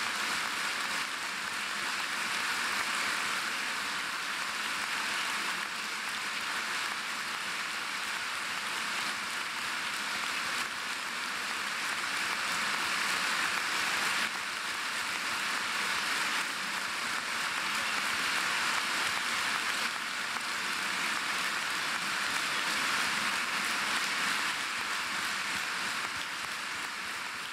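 Sustained applause from a large audience, a dense, even clapping that holds steady throughout.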